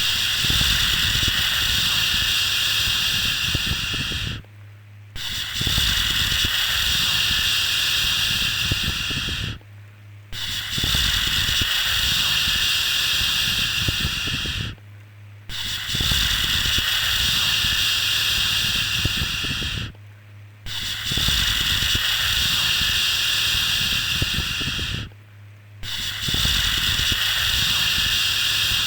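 A long drawn-out "shhh" shushing sound, repeated in an even loop: each shush lasts about four and a half seconds, then stops for about half a second before the next. A steady low hum runs underneath throughout.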